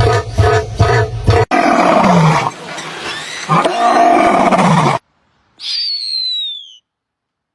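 A rhythmic beat that stops about a second and a half in, then a big cat roars twice over about three seconds. Near the end comes a single high call that falls in pitch.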